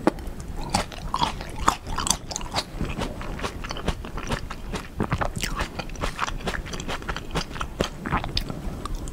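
Close-miked biting and chewing of seedless Black Sapphire grapes, eaten whole with their skins, heard as a dense run of short clicks throughout.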